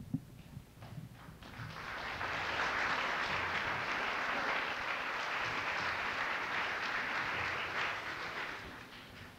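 An audience applauding after a short thud at the very start. The clapping builds about a second and a half in, holds steady, and dies away near the end.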